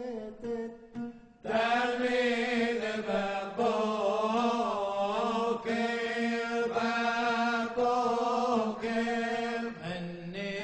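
Men singing a Bakashot piyyut in melismatic Middle Eastern Jewish chant. It is quiet and broken up at first, then from about a second and a half in it is louder, with long ornamented notes held over a steady low note.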